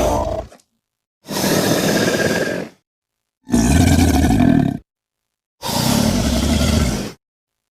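A series of custom alligator roar sound effects: three loud, rough roars of about a second and a half each, after the end of a fourth just at the start. Each cuts off into dead silence before the next begins.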